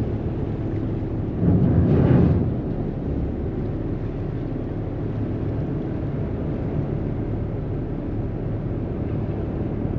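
Ferry engine running with a steady low hum under the rush of the churning wake. A louder rushing swell comes about one and a half seconds in and lasts about a second.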